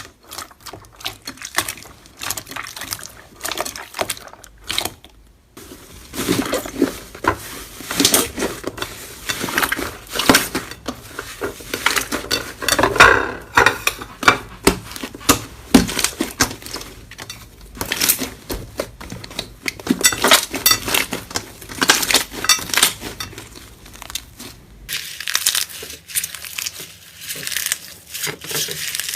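Slime being squeezed and kneaded by hand, giving dense, irregular crackling and popping clicks.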